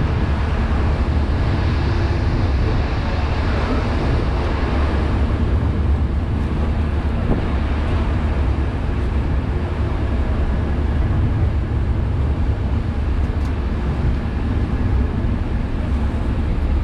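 Steady low drone of a vessel's engines running, with a broad rushing noise over it.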